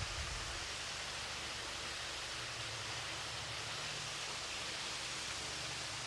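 Steady rush of a small waterfall.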